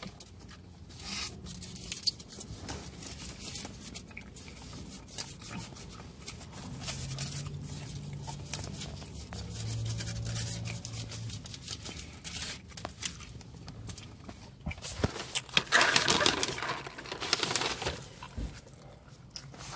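Someone eating: chewing and mouth clicks with crinkling of paper food wrappers, and a louder rustle a few seconds before the end.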